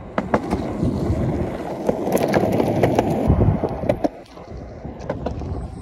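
Skateboard wheels rolling on a concrete path: a steady rumble with scattered sharp clicks, easing off and getting quieter about four seconds in.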